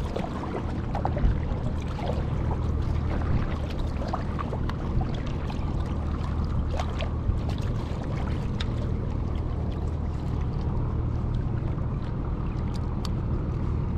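A sit-on-top fishing kayak being paddled across calm sea: small paddle splashes and water lapping at the hull over a steady low rumble.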